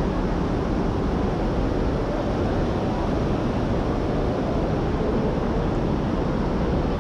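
Heavy rain on the roof overhead, a steady unbroken hiss.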